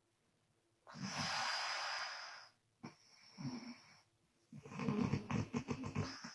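A woman snoring in her sleep. About a second in comes a long breathy exhale, then a short low snort, and near the end a rapid rattling snore with the lips flapping on the out-breath.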